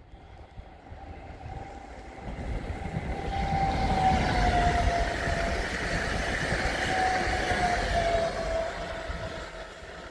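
BRB Stadler FLIRT electric multiple unit passing at speed: a rumble of wheels on rail that builds to its loudest about four seconds in and fades near the end. Over it, a whine drops slightly in pitch twice as the train goes by.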